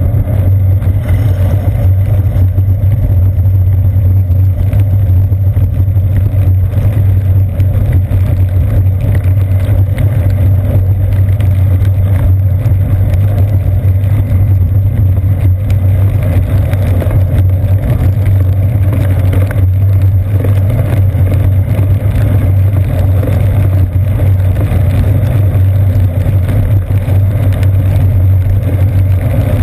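Steady, loud low rumble of a bicycle rolling over wet pavement, carried as road vibration through the seat post into a GoPro Hero 2 camera, with a hiss of tyre and rain noise over it.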